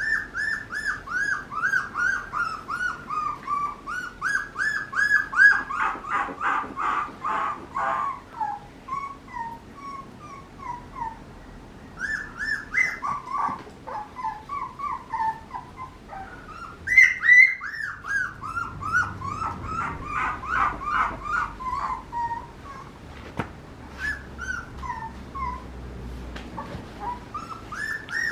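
Papillon puppy whining in runs of short, high yips, several a second, each dropping in pitch, with brief pauses between the runs.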